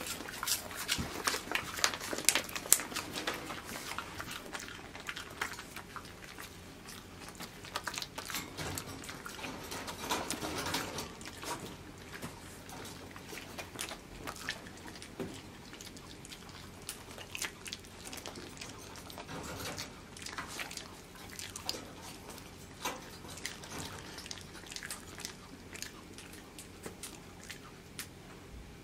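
Kai Ken dogs chewing and crunching treats: quick crisp bites and clicks, busiest in the first few seconds and again around ten seconds in, then sparser.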